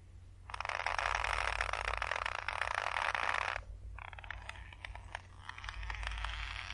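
Rope creaking under tension: a dense, grainy creak for about three seconds, then a quieter, more broken creaking.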